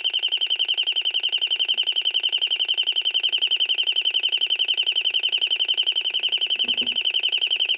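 Royal smoke, gas and fire alarm sounding on test through its built-in loudspeaker: a high-pitched tone pulsing very fast, about eleven pulses a second, like a burglar alarm with a chirping bird sound to it.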